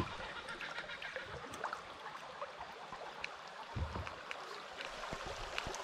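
River water running steadily, with scattered small clicks and a couple of dull bumps about four seconds in.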